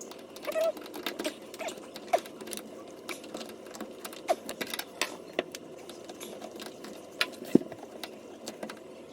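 Crescent wrench driving a tight screw into a washer's drain pump mount: irregular small metal clicks and taps, with a few brief squeaks as the screw turns.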